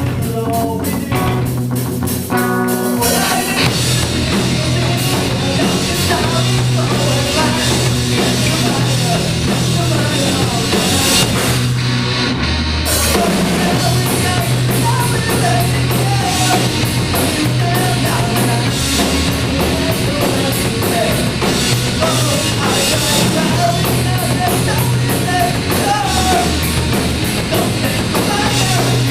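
Live rock band playing: drum kit, electric guitar, bass and a singer. The full band comes in about three seconds in.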